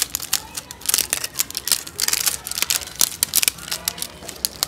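Fingernail and fingers scratching and picking at cotton manjha kite string wound on a plastic spool, making irregular crackling and scratching clicks.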